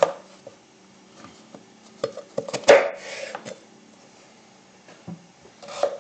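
Kitchen knife cutting potatoes on a wooden cutting board: a few sharp knocks, a cluster of them about two to three seconds in, the loudest of all, and another near the end.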